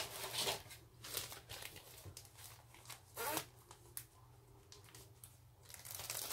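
Small plastic bags of diamond-painting drills crinkling and rustling as they are handled, in short scattered bursts, louder near the end.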